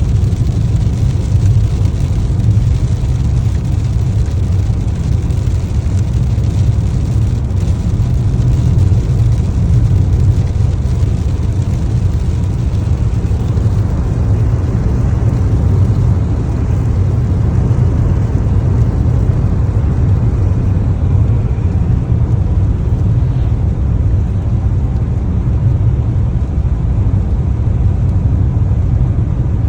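Car driving at a steady pace: a continuous low rumble of engine and road noise.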